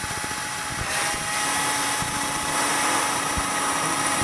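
Cordless drill running at speed, with a steady motor whine, boring down through a timber strip and the boat's cored side deck: fibreglass top skin, foam core and bottom skin.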